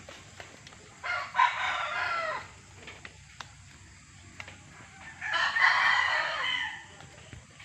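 Two long, loud calls from a farmyard animal, the first about a second in and the second about four seconds later, each lasting about a second and a half.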